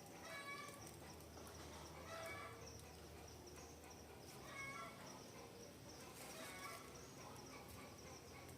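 Forest birds calling: a short, layered call repeats about every two seconds, over a faint steady high chirring.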